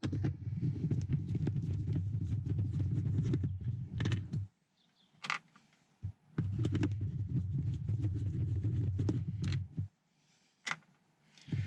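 A power screwdriver running in two steady bursts of about four seconds each, starting and stopping sharply, as it backs out the two screws holding the window switch panel together, with small clicks in between.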